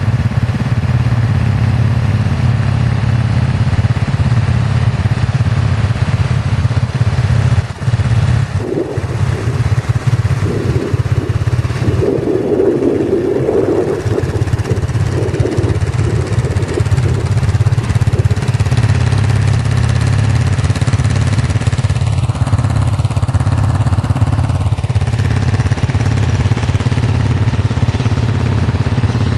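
Quad bike engine idling steadily, with a short louder, rougher stretch in the middle.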